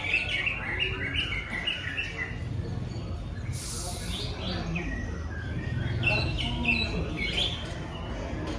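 A cucak ijo (green leafbird) singing a fast, varied song of short chirps and whistled notes, its mimicking song in which it works in calls of other birds. A brief hiss cuts in a little under halfway through.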